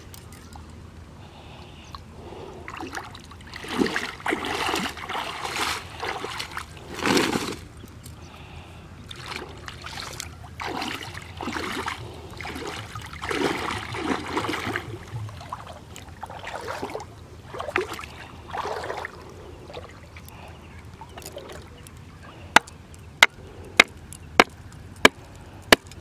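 Shallow river water sloshing and splashing in uneven bursts as someone wades and handles a wooden stake. Near the end, a steady run of sharp hammer blows drives the wooden stake, about one and a half a second.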